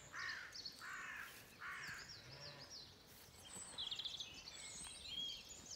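A crow-family bird cawing harshly, about five caws roughly half a second apart, fading out about halfway through. Small songbirds then sing quick, high repeated notes.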